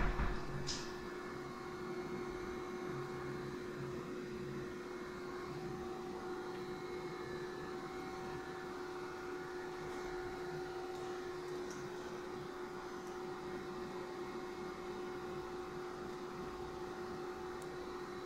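Steady hum of electrical equipment running, with one constant mid-pitched tone; a sharp click right at the start.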